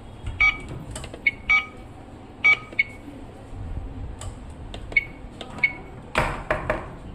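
Realtime T304F+ biometric attendance machine giving short, high electronic beeps again and again at irregular intervals, the unwanted constant beeping the device keeps making. A louder noisy knock or rustle comes about six seconds in.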